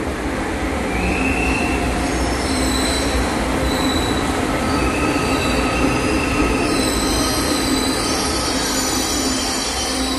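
Metro train pulling into a station platform, with a steady rumble and high squealing tones that come and go.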